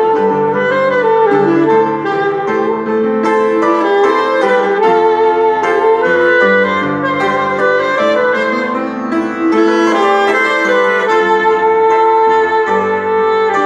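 Saxophone playing a melody of held notes over upright piano chords: an instrumental sax and piano duet of a worship song.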